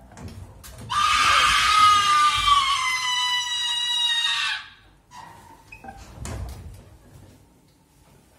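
A long, shrill scream held for about three and a half seconds, slowly falling in pitch before cutting off.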